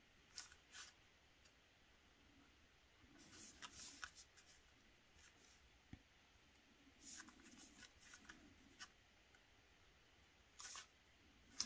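Faint, scattered ticks and scratches of a Micron fineliner pen tip dotting and drawing on watercolour paper, a few at a time, over near silence.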